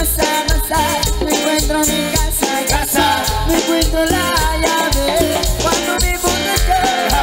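Live band playing Latin dance music with a steady bass beat and a melody line.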